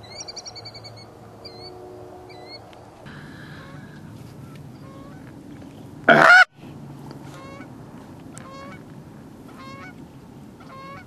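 Geese honking: a series of wavering honks, with one much louder, close honk about six seconds in and fainter honks repeating a little under once a second after it.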